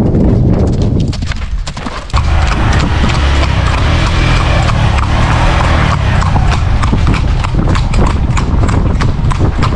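Hoofbeats of a ridden horse trotting on a hard dirt track: a quick, steady run of clip-clop strikes. They fade briefly and come back louder about two seconds in.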